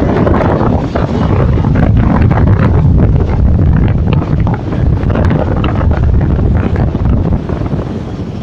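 Storm wind buffeting the microphone in a loud, steady rumble, over rough sea waves washing against the pier.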